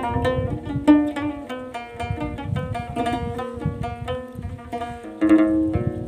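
Moroccan loutar, a skin-topped Amazigh plucked lute, played solo in an improvised taqsim: quick runs of plucked notes over repeated low open-string notes, with a stronger accented phrase about five seconds in.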